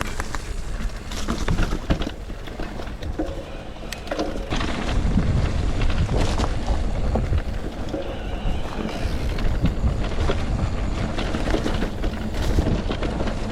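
Riding noise from an electric mountain bike on a rough dirt trail: wind buffeting the microphone over a steady low rumble, with scattered knocks and rattles as the bike rolls over bumps.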